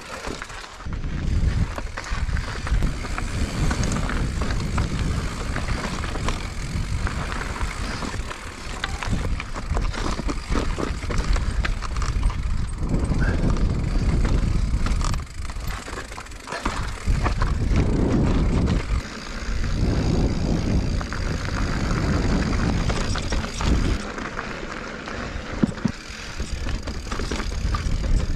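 2021 Giant Reign Advanced Pro 29 mountain bike rolling over rock and dirt singletrack: a gusty rushing noise on the camera microphone over tyre crunch, with many short knocks and rattles as the bike drops over rock ledges.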